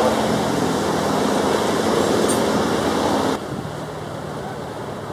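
A departing airliner's jet engines at takeoff thrust make a loud, steady rushing noise. About three seconds in, it cuts abruptly to the quieter, steady rush of a Boeing 737-800's engines on approach.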